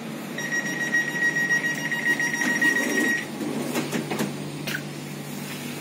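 Electronic door warning tone of a Dutch NS commuter train: one steady high beep lasting nearly three seconds. It is followed by a few sharp clicks and a low steady hum.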